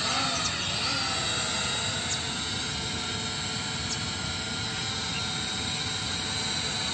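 E88 mini quadcopter drone's motors and propellers whining steadily as it hovers, with a slight waver in pitch in the first second.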